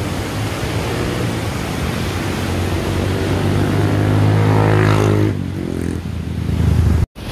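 A motor vehicle's engine passing close by, growing louder to a peak about four to five seconds in and then fading, over a steady rush of the flooded river. The sound cuts out briefly near the end.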